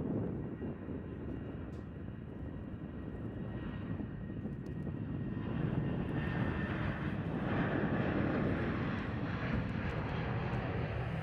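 Boeing 737-800 jet engines running at takeoff power as the airliner accelerates down the runway on its takeoff roll. The sound grows louder and brighter about halfway through as the plane passes.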